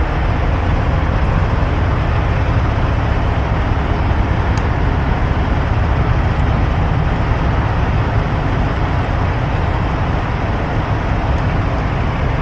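Steady low rumble of road vehicles, engine and traffic noise, with a faint click about four and a half seconds in.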